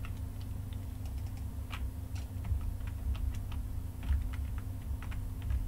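Scattered, irregular clicks of a computer keyboard and mouse as software is operated, over a steady low hum.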